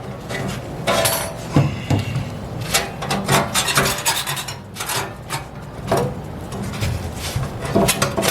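Sheet-metal school bus wall panel being pried and pulled loose: irregular metal scraping and rasping with several sharp clanks.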